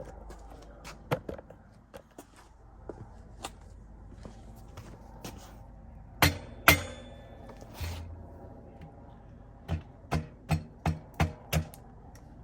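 Mallet tapping an electric bike hub motor's axle down into the rear frame dropout to seat it fully. A few light knocks, two loud strikes about six seconds in, then six quick taps near the end, about two or three a second.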